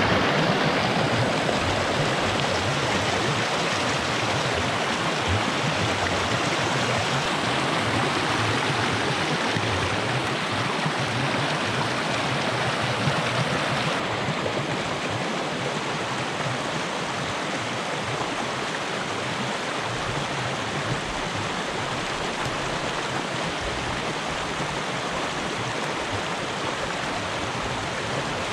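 Pond water rushing steadily through the breach torn in a beaver dam, draining the pond. It is a little quieter from about halfway through.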